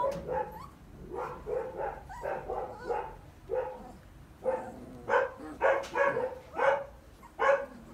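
Three-week-old goldendoodle puppy giving a quick string of short, high yips and small barks, louder in the second half.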